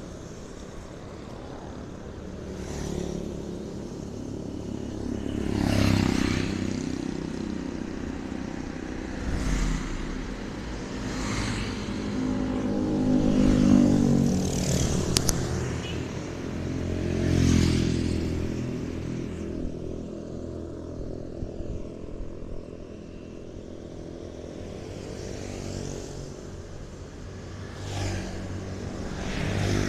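Road traffic: several motor vehicles pass one after another, their engine noise swelling and fading with each pass.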